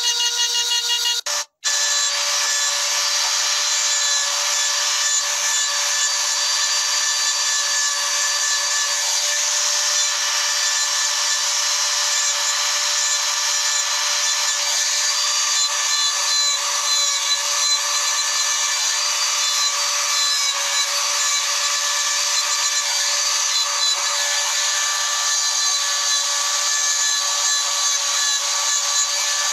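Handheld electric rotary engraving tool running with a steady whine and hiss as its bit cuts lines into a stone slab. The sound drops out briefly about a second and a half in, then carries on.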